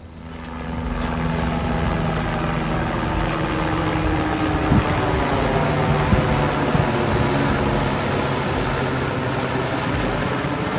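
Steady rush of ocean surf breaking on the beach, with a low even hum underneath.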